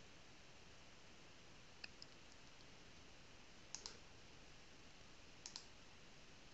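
Faint computer mouse clicks: three pairs of quick clicks about two seconds apart, over near-silent room tone.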